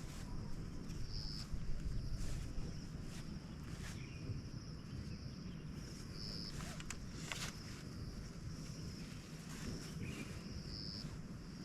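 Forest ambience: a steady high insect drone that swells briefly about every four and a half seconds, over a low rumble, with a few sharp clicks near the middle.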